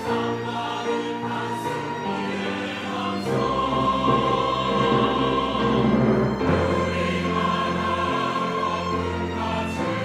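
A church choir singing a sacred anthem in sustained chords, swelling louder around the middle.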